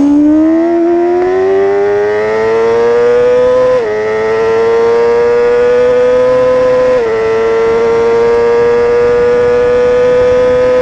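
BMW S1000RR's 999cc inline-four at full throttle, its exhaust note rising steadily in pitch through the gears. The pitch dips briefly at each upshift: about four seconds in, about seven seconds in, and right at the end.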